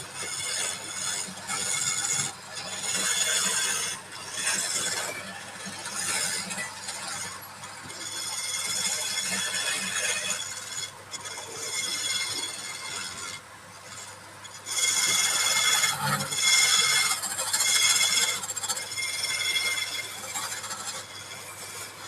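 Turning tool cutting a spinning workpiece on a wood lathe: a high scraping squeal that comes and goes every second or two as the tool bites and lifts off, loudest in a long pass about two-thirds of the way through.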